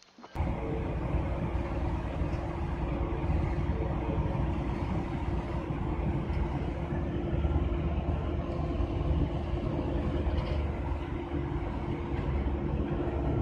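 Truck engine and road noise heard from inside the cab while driving: a steady low rumble with a constant droning hum.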